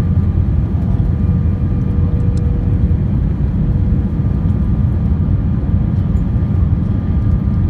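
Steady low rumble of jet engines and rushing air heard inside an Airbus A320's cabin on the descent to landing. A faint steady hum under it stops about three seconds in.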